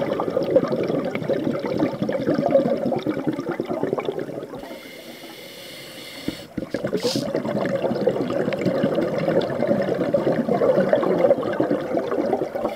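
Scuba diver's exhaled breath bubbling past the camera underwater. The bubbling stops for about two seconds near the middle, leaving a faint hiss, then starts again.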